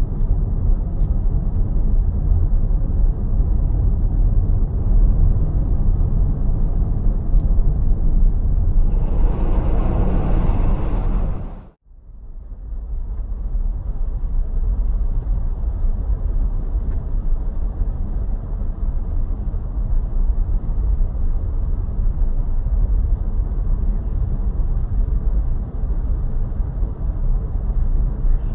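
Steady low rumble of road and wind noise from a car driving along a city street. About nine seconds in a louder rushing swell rises, then the sound cuts out abruptly for a moment near twelve seconds before the rumble resumes.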